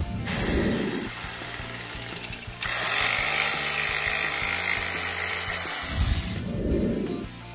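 Bosch corded jigsaw cutting through a laminate floor plank, running loudly from about two and a half seconds in and stopping near the end, with background music throughout.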